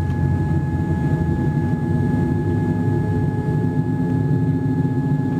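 Steady cabin noise of a Boeing 787-8 Dreamliner taxiing: the low rumble of the jet engines at taxi power with a steady thin whine above it.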